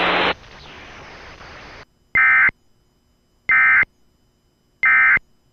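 Emergency Alert System end-of-message signal from a Sage ENDEC 1822: three short, identical screeching data bursts of two-tone digital code, about a second and a half apart, marking the end of the alert. They follow about a second and a half of steady hiss.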